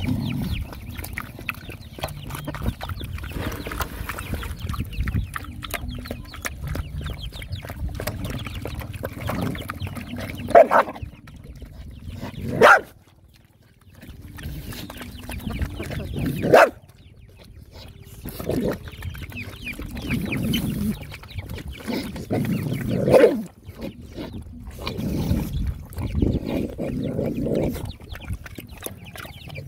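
Several dogs lapping and slurping watery food from a basin, a dense run of quick wet smacks and gulps. About four short, louder sounds stand out over the eating.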